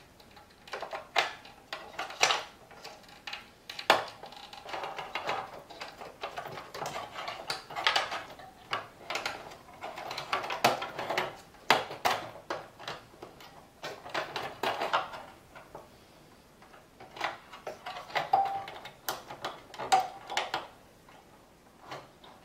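Irregular clicks, taps and short scraping rustles of hands working inside an open vintage synthesizer chassis, pushing the power supply's wire connectors back onto the circuit boards.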